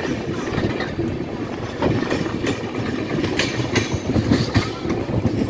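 Passenger train running at speed, heard at an open coach doorway: a steady rumble from the LHB coach's wheels on the rails, with a run of sharp, irregular clacks from about two seconds in as the wheels cross rail joints and points.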